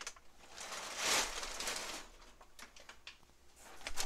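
Crumpled brown kraft packing paper rustling as it is pulled out of a cardboard shipping box. The loudest rustle comes about a second in, followed by a few lighter rustles and taps against the box.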